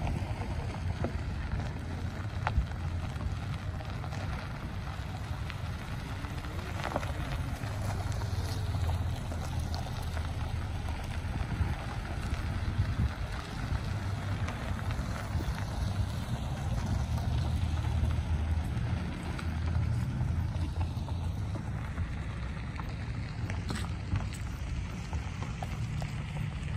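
A slow line of cars rolling past on a gravel lane, under a steady low wind rumble on the microphone.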